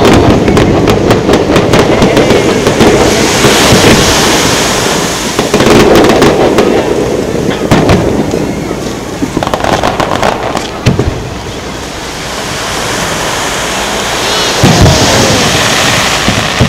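Aerial fireworks display: dense crackling and bangs from bursting shells at first, then single deep booms about 8, 11 and 15 seconds in.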